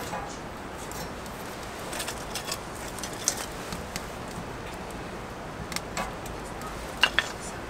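Scattered light clicks, taps and clinks of small hard objects being handled, over a steady hiss; two sharper clicks come close together near the end.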